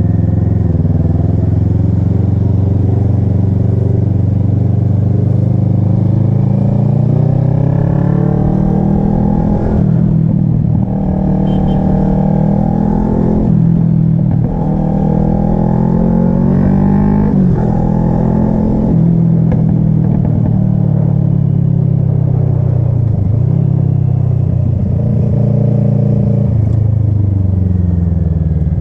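Kawasaki ER-6n parallel-twin engine under way. The revs climb, dip sharply at two upshifts about ten and fourteen seconds in, climb again, then fall steadily as the bike slows.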